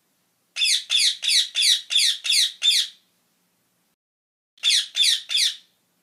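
Rose-ringed parakeet giving shrill, harsh screeching calls, about three a second: a run of seven, then after a pause of about a second and a half, three more.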